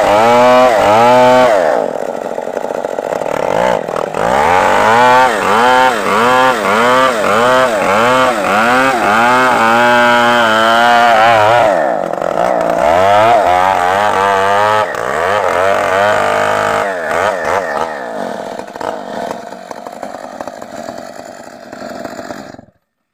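Stihl MS 381 two-stroke chainsaw ripping lengthwise through a timber beam. Its engine note rises and falls about twice a second as the chain bites and recovers. It fades over the last few seconds and stops abruptly near the end.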